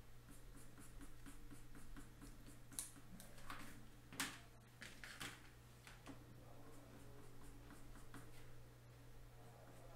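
Faint scratching of a soft graphite pencil shading on paper in short repeated strokes, with a couple of sharper clicks about three and four seconds in, over a low steady hum.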